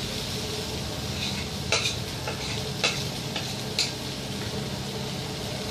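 Chopped vegetables sizzling in a hot frying pan while a spatula stirs them. The spatula scrapes and knocks against the pan about five times in the middle of the stretch.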